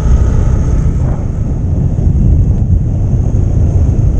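Riding wind buffeting the microphone on a moving motorcycle, with the engine and road noise running steadily underneath.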